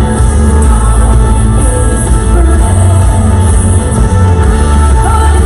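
Loud recorded worship song playing from the TV's video, a full band with a heavy, steady bass line.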